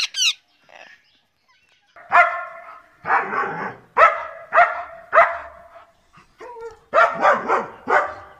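German shepherd dog barking in short single barks: a run of about five from two seconds in, a brief pause, then a quicker run of about four near the end. A brief high screech sounds at the very start.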